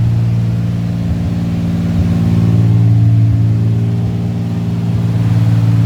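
Engine of a 1938 SS Jaguar 3½ Litre running steadily in gear, driving the rear wheels. Its note sags slightly and picks back up a couple of times. It is a test run of the newly restored drivetrain with the brakes binding a little.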